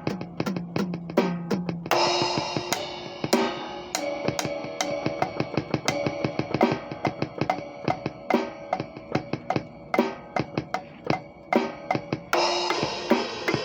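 Acoustic drum kit played loosely and freely: a dense, uneven run of snare, tom and bass drum hits, with cymbal crashes ringing out about two seconds in and again near the end.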